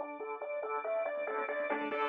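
Electronic intro music: a quick, repeating pattern of synth notes, about six or seven a second, with a rising hiss building near the end.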